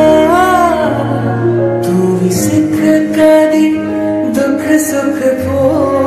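Recorded song music: sustained chords under a voice holding a note that swells up and falls back in the first second, with percussion strikes coming in from about two seconds in.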